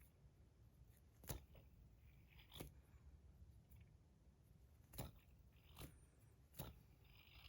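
Near silence broken by five light, sharp clicks, spaced a second or so apart: a tungsten fidget spinner being handled and spun.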